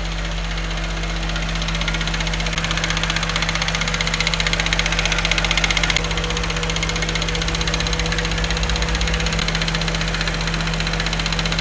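BMW 540i engine running steadily at idle, after a repair to cure a noise. Its level rises a little a couple of seconds in, then settles back.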